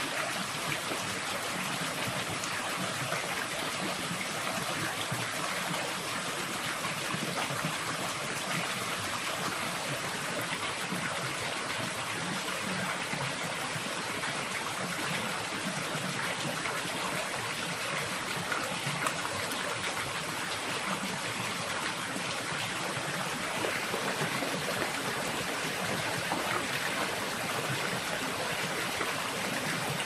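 Small rainforest stream running steadily over rocks. From about three quarters of the way in, rain falling on the water adds a higher hiss.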